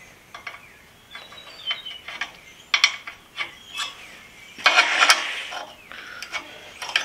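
Small metal clicks and clinks of a steel combination square being handled and laid on a flat steel plate, with a louder metal-on-metal scrape and clatter about two-thirds of the way through.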